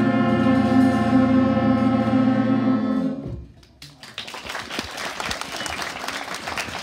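A school jazz big band of saxophones and brass holds a final chord that cuts off about three seconds in. The audience starts applauding a moment later.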